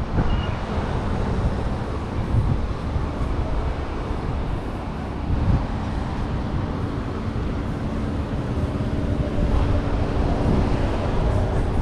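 Steady city street noise: a low traffic rumble, with a faint steady hum setting in about halfway through.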